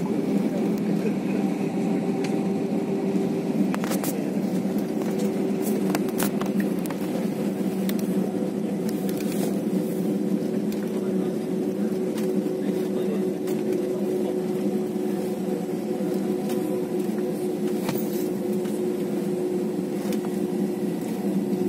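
Steady cabin noise of an Airbus A320-family jet taxiing with its engines at idle: a constant hum with a held tone, and a few faint clicks.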